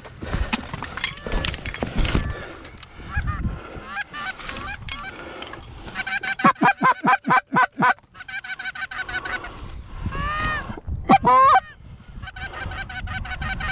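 Geese honking, with a fast run of short honks a little under halfway through and a few louder, longer honks near the end.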